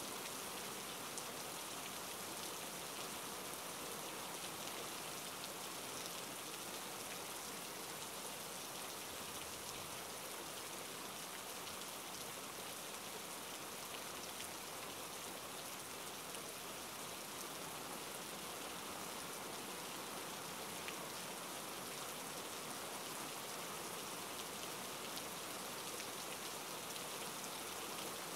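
Steady rain, an even hiss with faint scattered drop ticks.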